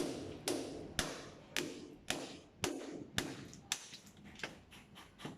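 Repeated sharp knocks, about two a second, each with a short ring after it, growing fainter toward the end.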